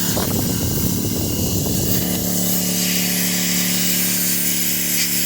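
Air compressor motor running with a steady hum while compressed air hisses through the hose into a riding mower tire; the airflow is uneven and choppy for about the first two seconds, then settles.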